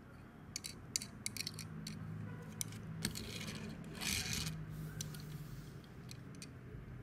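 A 1:64 Mini GT die-cast Nissan Skyline GT-R (R32) model handled in the fingers: a run of small clicks and taps in the first two seconds, then a short scrape of a hand sliding across a textured board a few seconds in, with further light taps as the car is set down.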